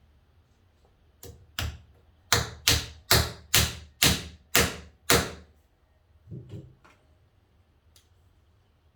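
A hammer tapping a glued wooden dowel into an old screw hole in a door's edge: about nine sharp knocks, two or so a second, then one softer knock.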